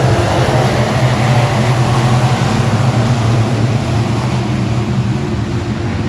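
Dirt-track race car engine running steadily at speed, a loud, constant drone.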